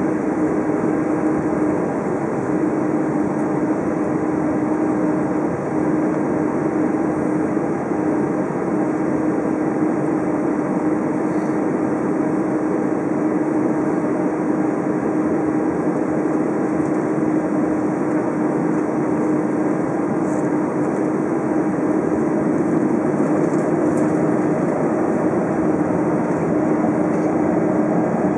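Steady jet engine drone and rumble of an Airbus A320 taxiing, heard from inside the cabin, with a constant low hum under the noise and no rise in power.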